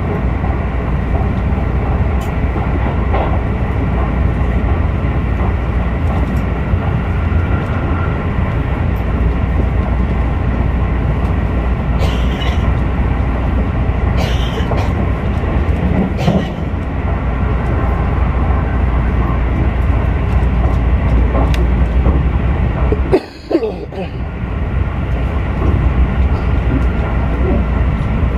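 Keisei Skyliner train running at speed: a steady low rumble of wheels on rail with a faint steady whine above it and a few light clicks. The noise drops out sharply for a moment about 23 seconds in, then returns.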